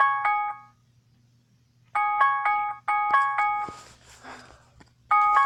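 Phone ringtone previews: a short chiming electronic tune of quick notes starts four times and is cut off after less than a second each time, as ringtones are tapped through one after another on the phone.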